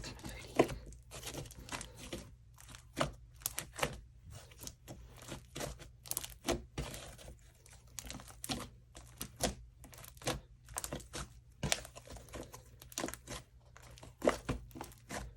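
Homemade slime being squished and stretched by hand, making irregular wet clicks, pops and crackles, several a second.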